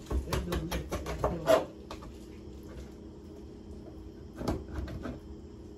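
Kitchen knife cutting raw beef into chunks on a countertop, the blade knocking and tapping against the surface: a quick run of knocks in the first second and a half, the loudest near its end, then a few more about four and a half seconds in.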